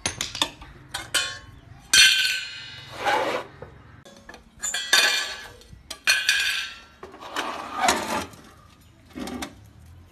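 Stainless steel burner rings and metal parts of a gas stove being lifted off and set down, clinking and clanking about half a dozen times with a short ring after each, the loudest about two seconds in. A few quick sharp clicks come in the first second.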